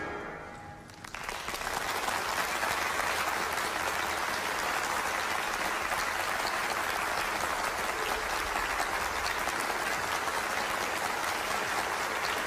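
Audience applause, starting about a second in as the ensemble's last note dies away, then steady and dense.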